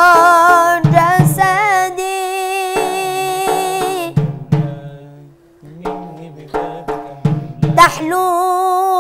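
Boy's voice chanting an ibtihal, a devotional Islamic hymn, on long ornamented held notes with a wide vibrato, over drum strokes. About halfway the sound almost drops away for a moment, then the drum strokes pick up and the voice comes back strongly near the end.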